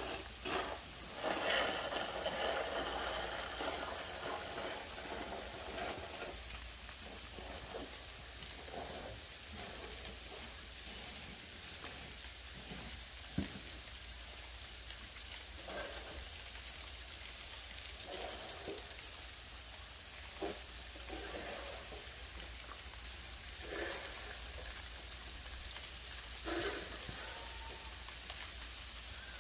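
Freezing rain and sleet falling, a steady pattering hiss, with a few faint short knocks or scrapes here and there.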